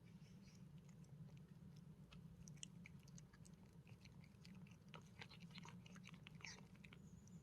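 Faint chewing and crunching, a string of small clicks that grows busier about five seconds in, as of an animal eating.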